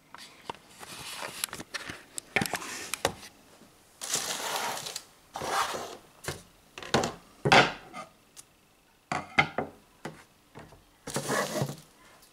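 Rummaging in a cardboard shipping box: repeated rustles and scrapes of packing and box, broken by sharp clicks and knocks of items being picked up and set down.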